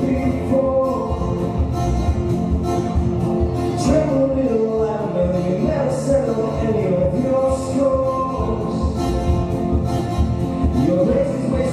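A small live acoustic band playing a pop cover: acoustic guitar, double bass, drums and keyboard, with a violin playing a melody.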